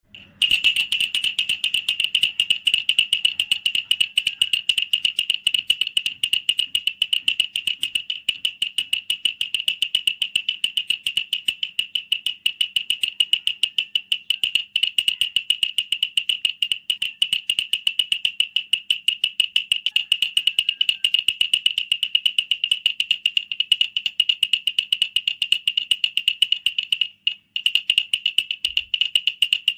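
Wooden baby rattle (kilukiluppai / jhunjhuna toy) shaken continuously, giving rapid, even clicking. There is a short pause near the end.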